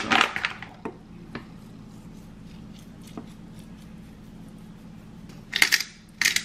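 Kitchen food-prep handling: a few light clicks and knocks, then two short rasping strokes near the end, over a low steady hum.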